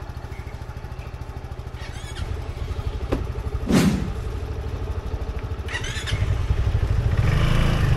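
Motorcycle engine idling with a fast, even low pulse, growing louder near the end. A single thud about four seconds in.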